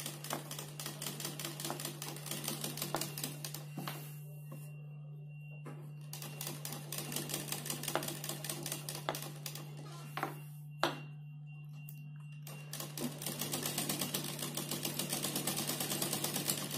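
Sewing machine stitching in fast, even strokes as pleats are sewn into the fabric, stopping twice for a couple of seconds, about four seconds in and again near eleven seconds, with a single click in the second stop.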